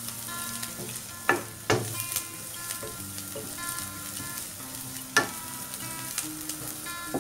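Chopped ginger and green chillies sizzling steadily in hot coconut oil in a nonstick pan as they are fried until browned, stirred with a wooden spatula. A few sharp knocks come as the spatula hits the pan.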